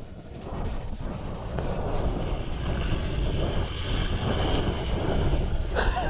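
Steady rumble of a vehicle running, with wind buffeting the microphone.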